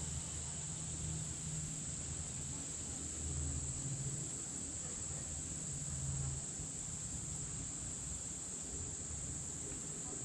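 Steady, high-pitched buzzing of an insect chorus in summer vegetation, with a low hum underneath that swells and fades every second or two.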